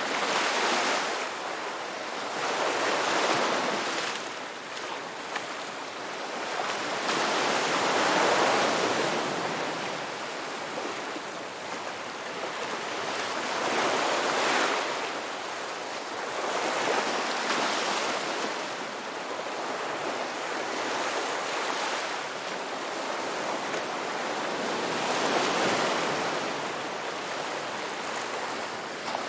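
Ocean waves breaking and washing up a beach: a steady rush of surf that swells and recedes in surges every few seconds.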